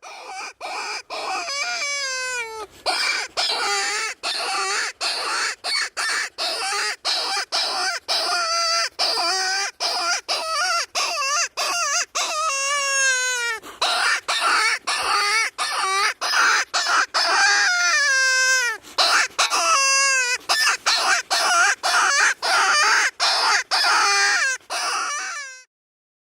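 A pack of coyotes howling and yipping together: long wavering howls that slide up and down, mixed with many short, high yips and barks. The sound starts and stops abruptly.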